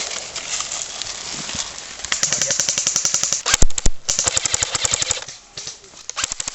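Airsoft electric guns firing rapid full-auto bursts, a fast even rattle of shots in two long strings and a shorter one near the end, with two louder single cracks between the first two strings.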